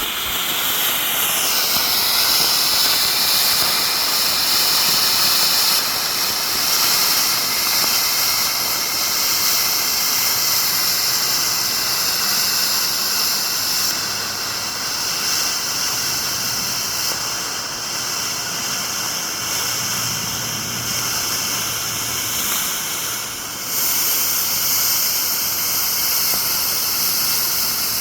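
Colored smoke fireworks burning with a loud, steady rushing hiss. The hiss dips briefly about 23 seconds in, then comes back as strong as before.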